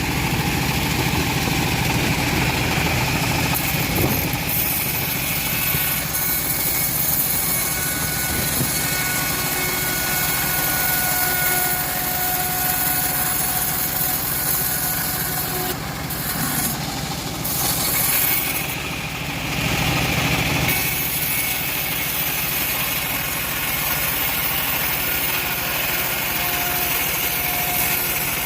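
Two-stroke chainsaw running under load as it rips teak wood lengthwise. It runs steadily, with brief changes in its sound about two-thirds of the way through.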